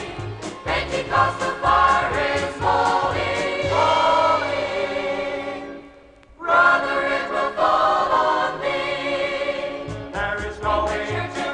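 Choir singing gospel-style Christian music over a repeating low bass line. The music fades almost away about six seconds in, then comes back in full.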